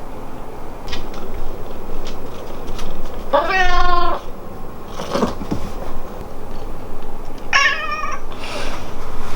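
Domestic cat meowing twice, each meow under a second long, about four seconds apart.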